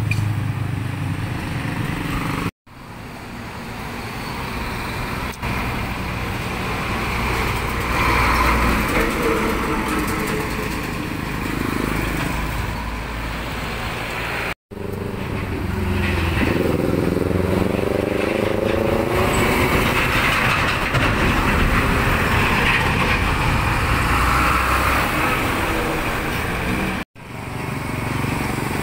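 Heavy diesel trucks and other traffic driving past on a road, with engine rumble and tyre noise. A little past the middle one engine's note rises as it accelerates, and the sound drops out suddenly for an instant three times.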